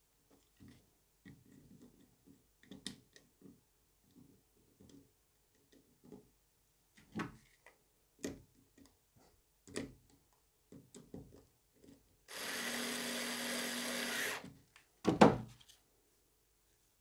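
Small cordless screwdriver running for about two seconds with a steady hum, driving a screw into a plastic dust-boot mount. Before it come scattered small clicks and taps of plastic parts and screws being handled, and just after it one loud clatter, the loudest sound.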